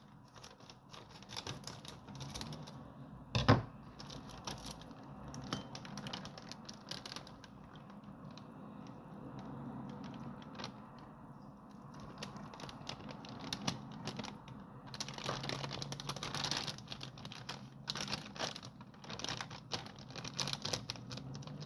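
A plastic microwave steam bag being torn open and handled, crinkling and rustling with scattered small clicks. There is a single sharp knock about three and a half seconds in, and the crinkling grows busier in the last third.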